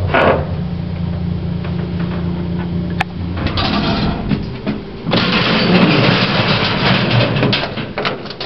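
Original 1960s J&E Hall service lift machinery running: a steady low motor hum, a sharp click about three seconds in, then a loud rough mechanical noise from about five seconds.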